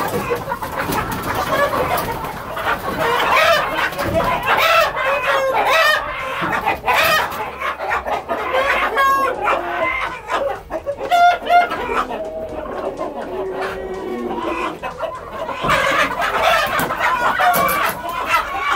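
A coop full of chickens clucking and squawking, with roosters crowing among them, as the birds are caught by hand. A rooster held upside down by its feet flaps its wings near the end.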